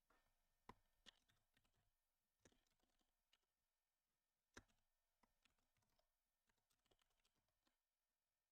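Faint, irregular clicks of typing on a computer keyboard, with two sharper keystrokes, one near the start and one about halfway through.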